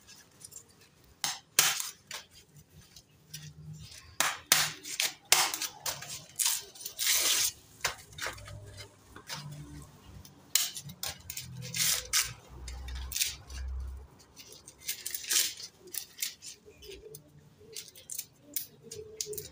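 Green husks being torn and stripped off fresh ears of corn by hand in short irregular rips, with a chef's knife cutting at the ears and clinking against a stainless-steel sink, and a couple of dull knocks about two-thirds of the way through.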